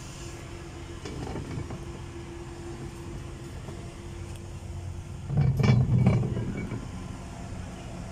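Forklift engine running steadily while a heavy generator set is pushed along roller pipes. About five seconds in comes a louder, second-long rumble with metallic clatter.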